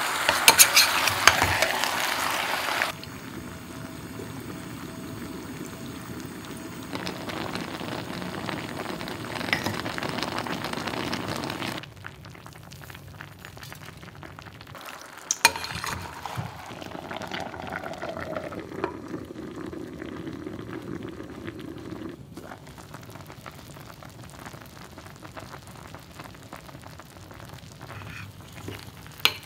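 Bone-in chicken pieces sizzling in caramel sauce in a clay pot, with a metal spoon stirring and scraping them for the first few seconds. The sizzling then goes on more quietly, dropping again about twelve seconds in, with a few light clicks.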